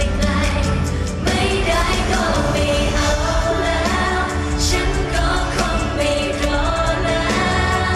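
Live Thai pop song performed on stage: band music with a steady beat and a singing voice, loud through the concert sound system.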